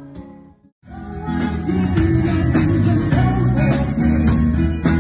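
The end of a song fades out to a moment of silence, then a new upbeat music track with guitar and a steady drum beat starts about a second in.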